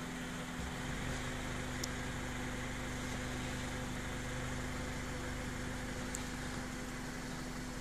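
Car engine running steadily at low speed, an even low hum with a constant tone and no change in pace.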